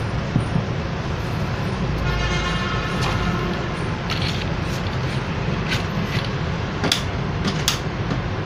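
Steady rumble of road traffic, with a few sharp clicks at about four, six, seven and eight seconds in.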